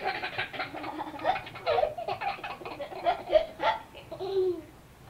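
A young child laughing, a long run of quick laughs that dies away near the end.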